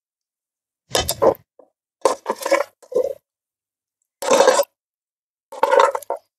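A metal ladle scraping and clinking against a metal cooking pot as braised beef and radish are stirred and scooped, in about four short bouts.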